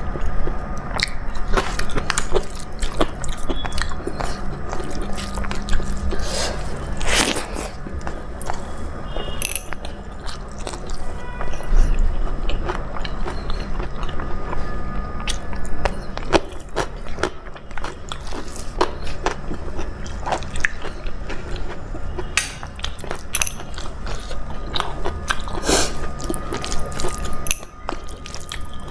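Close-miked eating: a person chewing and biting a dal-rice meal with sides, with irregular wet mouth sounds and crunchy bites. A steady low hum sits underneath.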